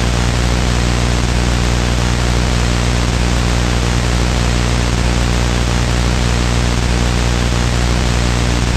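Loud, steady static hiss over a constant low electrical hum, unchanging throughout.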